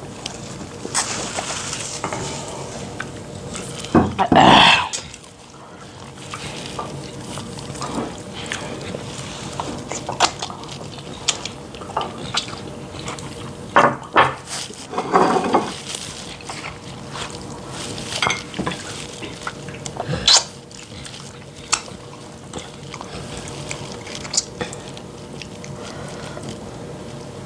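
Two people eating fufu and soup: wet mouth and liquid sounds with scattered clicks of bowls and utensils, and two louder, longer wet sounds about four and fifteen seconds in.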